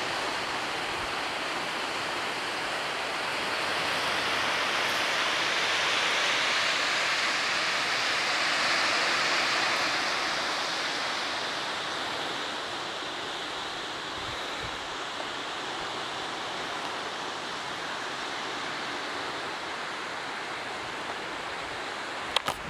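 Steady rush of Lake Michigan surf on the shore mixed with wind, swelling for several seconds in the middle and then easing.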